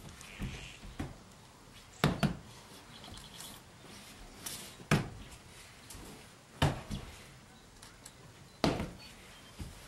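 Aikido practitioners' bodies and knees thudding onto tatami mats as throws and breakfalls land in a kneeling technique demonstration, with sharp thuds every couple of seconds, some in quick pairs.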